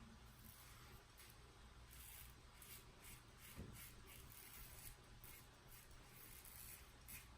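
Faint scraping of a razor blade over lathered stubble, in a series of short, irregular strokes.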